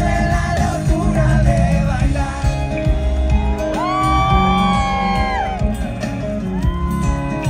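Live band playing with a heavy bass beat. A voice slides up into a long held note about four seconds in and drops off after a second and a half, with a shorter held note near the end.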